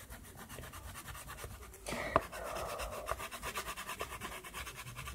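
Soft pastel rubbed quickly back and forth on paper: a fast, even scratching, with a single sharp tap about two seconds in.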